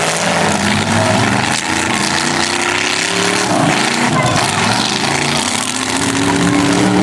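Demolition derby car engines revving hard, their pitch climbing and dropping again and again over a steady, noisy din.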